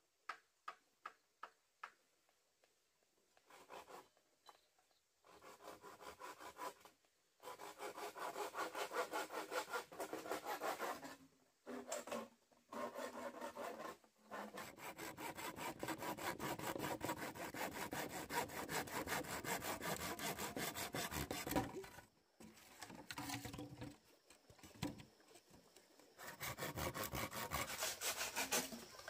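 Rhythmic rasping strokes in several long runs, broken by short pauses.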